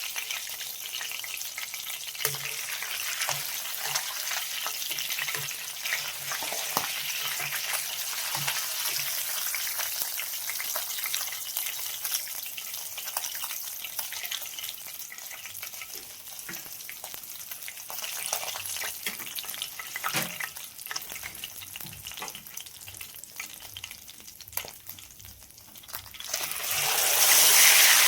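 Food frying in hot oil in a pan on a wood-fired stove, with a spatula stirring and knocking against the pan. About 26 seconds in the sizzle suddenly gets much louder, as when something wet is added to the hot oil.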